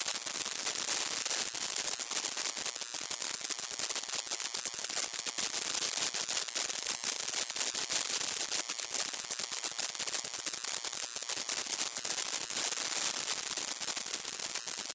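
Thin electrical crackle and distortion noise: a dense, fast crackling with hiss, mostly high-pitched with little bass, that stops abruptly at the end.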